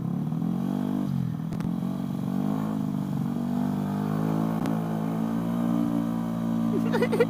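Race-tuned 200cc Vespa scooter engine running under the rider's throttle. Its pitch rises and falls over the first second and a half, then holds fairly steady at a cruise.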